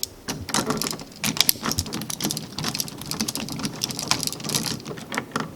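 Screwdriver tightening a terminal screw on a wall switch: a quick, irregular run of small clicks and scratches.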